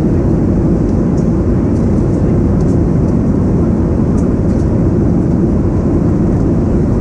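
Steady, loud cabin noise inside a Boeing 737-800: the rumble of its CFM56 jet engines and the airflow past the fuselage, low and unchanging, with a few faint light clicks.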